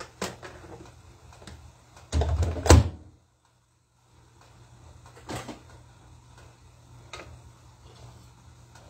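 Kitchen handling noises: scattered light knocks and clicks over a steady low hum, with a louder dull clatter ending in a sharp knock about two to three seconds in, after which the sound cuts out for about a second.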